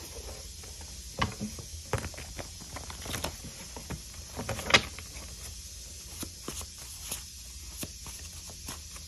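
A deck of cards being shuffled by hand: irregular papery flicks and taps, the sharpest about four and a half seconds in.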